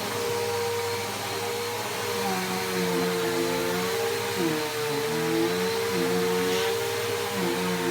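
Bissell PowerForce Helix Turbo upright vacuum cleaner running steadily, with a constant motor whine. Its lower tones waver up and down from a couple of seconds in.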